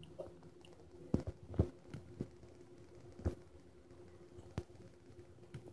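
A handful of soft, irregularly spaced clicks from a Nest thermostat as its ring is turned and its face pressed through the setup menus, over a faint steady hum.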